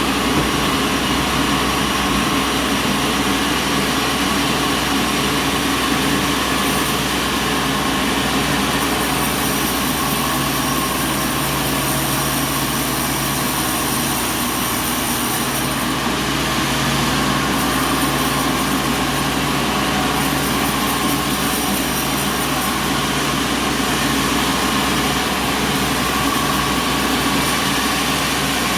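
Sawmill machinery running steadily: a constant low hum with a high whine above it, and no pauses.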